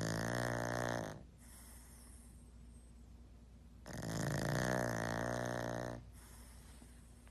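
Pug snoring in its sleep: two long, loud snores about four seconds apart, one fading out about a second in and the next running from about four to six seconds.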